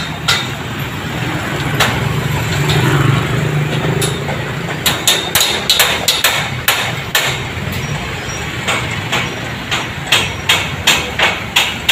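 Construction hammering: repeated, irregular hammer strikes, a few at first and then coming thick and fast from about halfway in, over a steady low rumble of traffic and engines.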